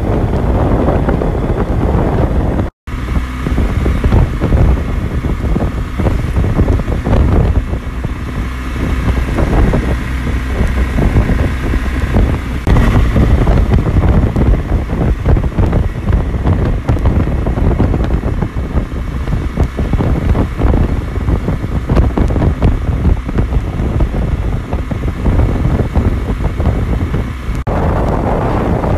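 Wind rushing over the microphone of a motorcycle riding a gravel road at speed, with the engine running steadily underneath. The sound drops out for an instant about three seconds in.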